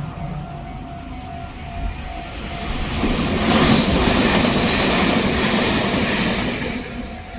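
Meitetsu express train passing through a level crossing: the rumble of wheels on rails builds about two seconds in, is loudest for about three seconds, then fades near the end. The crossing's warning bell rings steadily underneath.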